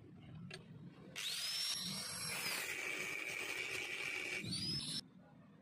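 Angle grinder with a thin cut-off disc spinning up about a second in with a rising whine, then cutting into a metal axe head clamped in a vise with a steady high-pitched whine. It cuts off abruptly near the end.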